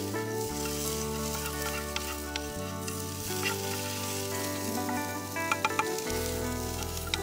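Food frying and sizzling in a pan over a campfire while it is stirred with a wooden spatula, with a few sharp clicks about five and a half seconds in. Soft background music with held chords and slow bass notes plays underneath.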